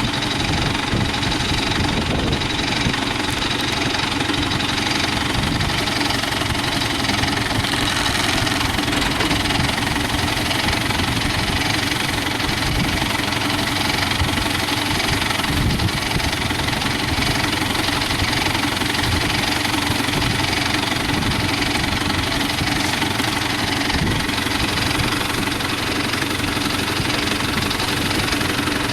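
A construction machine's diesel engine running steadily at an even speed, with no revving.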